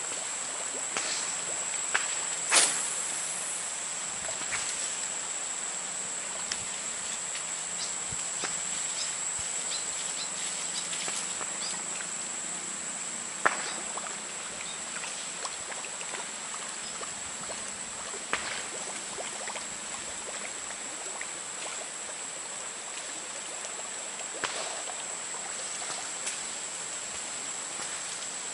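Quiet riverside outdoor ambience with a steady high-pitched whine throughout. A handful of sharp clicks stand out, the loudest about 2.5 s and 13.5 s in.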